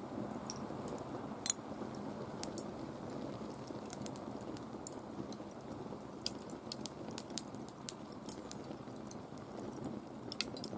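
A wood fire burning in a kettle grill, crackling and popping irregularly with sharp snaps over a steady low rush. The loudest pop comes about a second and a half in.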